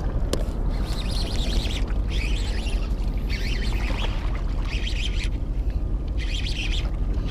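Baitcasting reel cranked in short spurts while a hooked fish is fought, giving repeated brief high rasping whirs about once a second. Under it runs a steady low rumble of wind on the microphone and water against the rocks.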